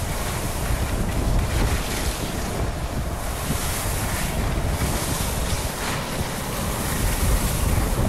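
Wind buffeting a microphone: a loud, steady rushing noise with a heavy low rumble that swells and eases every second or so.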